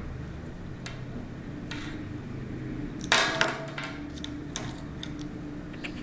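Handling noise of an iPod shuffle and its USB cable's headphone-jack plug on a stone surface: scattered small clicks and taps, with a louder clatter of a few clacks about three seconds in.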